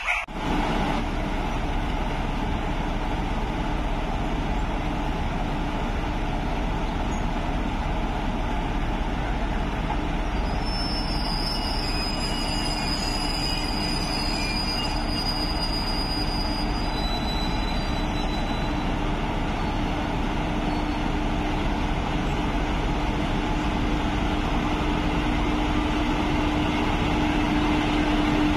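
Twin WAG5 electric locomotives moving slowly at the head of a tanker train: a steady running noise with a steady hum that grows louder near the end as the locomotives draw level. A thin high whistling sound comes and goes in the middle.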